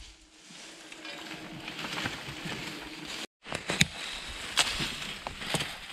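Dry leaf litter and twigs rustling and scraping as the forest floor is cleared by hand, then several sharp snaps and knocks of sticks and tools against the ground after a cut.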